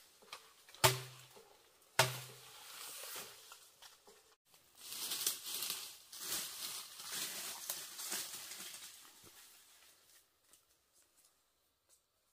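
Two sharp knocks about a second apart, each with a short low ring, then rustling of leaves and undergrowth with footsteps as a person moves through forest brush, fading out.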